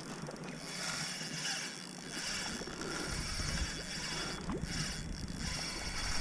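Water rushing and lapping along a kayak's hull as it moves, the hiss swelling and easing every second or two. Wind starts buffeting the microphone about three seconds in.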